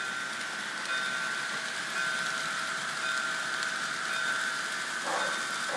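Sound system of an HO-scale model steam locomotive playing a steady steam hiss with a faint whine. A whistle starts just before the end.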